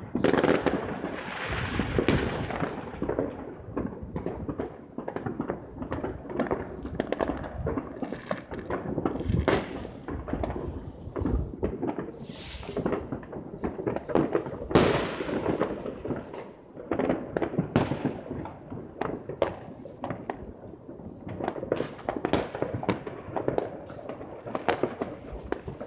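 Fireworks and firecrackers going off all around: a dense, irregular run of bangs and pops, many overlapping, with a big burst at the start and another about fifteen seconds in.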